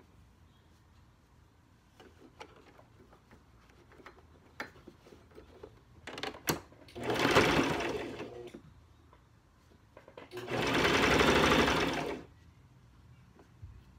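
Electric sewing machine stitching fabric in two short runs of about a second and a half each, one about halfway through and one near the end. Light clicks and rustles of fabric being handled come before the first run.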